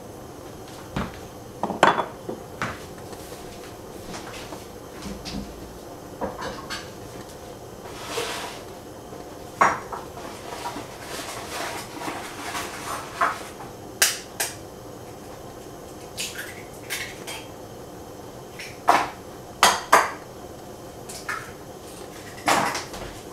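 Kitchen clatter: dishes, pans and utensils clinking and knocking, about fifteen separate sharp knocks at irregular intervals over a steady low hiss.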